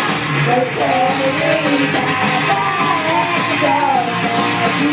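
Loud live rock-style music with electric guitar and vocals over it.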